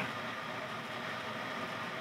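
Faint steady hiss of background room noise, with no distinct event.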